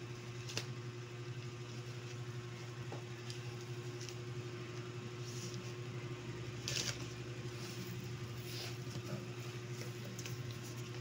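A steady low machine hum, with scattered light rustles and taps. Near the end, the flaps of a cardboard box rustle as the box is opened.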